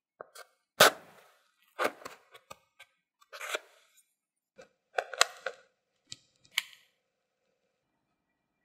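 Wooden chopstick pushed through the crisp baked bottom of choux puffs, giving a series of sharp crunching cracks, about five separate bursts a second or so apart.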